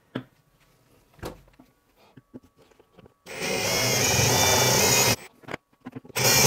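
A cordless drill drills out a rivet holding the earth bar on the back of a metal-clad double socket. A few small handling knocks come first. The drill then runs hard with a steady whine for about two seconds, and a short second burst follows near the end.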